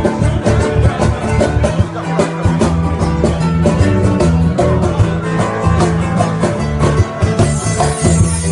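Rock band playing an instrumental passage between sung verses: guitar over a steady bass line and an even drum beat.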